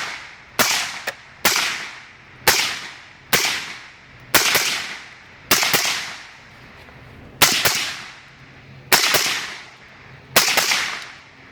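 Suppressed 5.56 Mk18 short-barrelled rifle firing about nine single shots, roughly one a second and spacing out towards the end. Each shot has a sharp supersonic crack followed by a drawn-out echo off the mountain.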